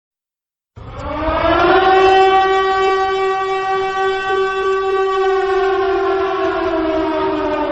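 A civil-defense-style siren winds up about a second in, holds a loud steady wail, then begins slowly falling in pitch over the last couple of seconds.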